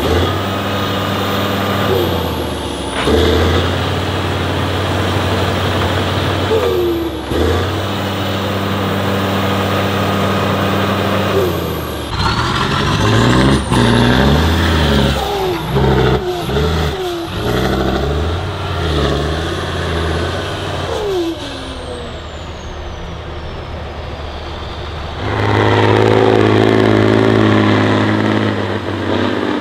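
Heavy off-road trial truck's engine running hard, its revs held for a few seconds at a time and then rising and falling repeatedly, with brief squeals and a high whistle.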